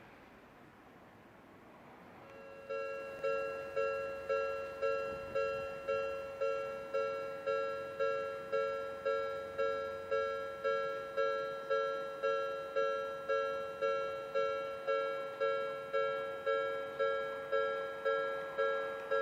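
Japanese railway level crossing warning bell starting about two and a half seconds in and then ringing steadily at about two dings a second, the signal that a train is approaching and the barriers are coming down.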